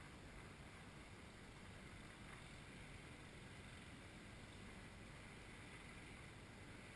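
Near silence: faint, steady background hiss with no kart passing.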